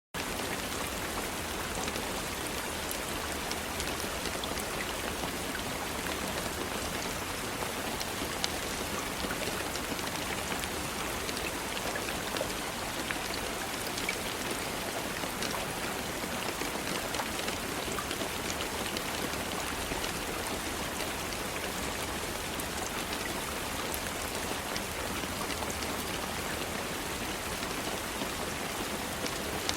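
Steady rain falling, an even hiss with many small individual drop hits scattered through it.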